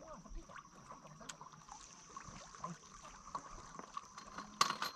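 Faint open-air ambience: a soft hiss with a steady faint high tone and scattered small clicks and crackles, with a louder brief rustling burst near the end.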